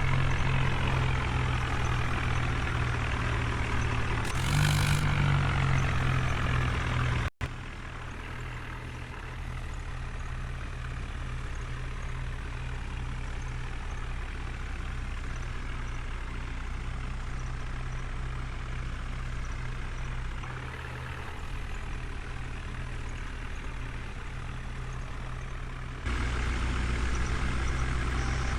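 Heavy diesel machinery engines running steadily with a low drone, with a brief louder rush about four seconds in. The sound drops abruptly about seven seconds in and comes back quieter, then grows louder again near the end.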